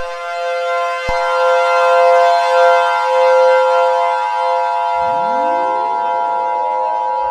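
Synthetic emergency-alert siren tones: several steady pitches sounding together, shifting with a click about a second in, then joined about five seconds in by rising siren wails that repeat every couple of seconds.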